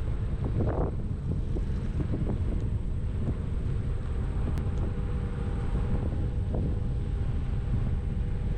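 Wind rumbling on the microphone over a steady low hum, with a few light knocks.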